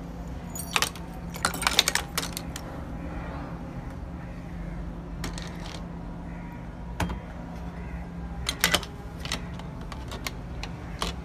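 Irregular sharp clicks and clinks of revolver parts and tools being handled, some in quick clusters, over a steady low hum.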